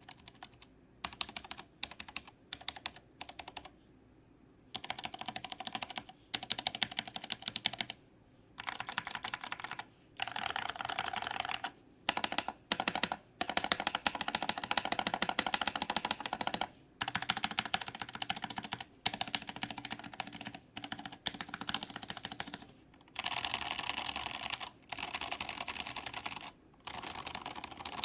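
Typing on a Kemove Snowfox 61 60% mechanical keyboard fitted with Gateron Brown tactile switches, in a plastic case with PBT double-shot keycaps. A few short bursts of keystrokes come first. From about five seconds in there are long runs of fast, continuous typing, broken by brief pauses.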